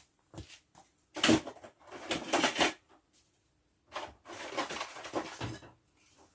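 Rustling and scraping handling noises in two irregular spells of about a second and a half each, with a few small knocks.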